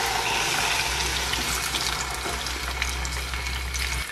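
Whole raw chicken sizzling in hot oil in a frying pan: a steady hiss with faint crackles that cuts off suddenly at the end.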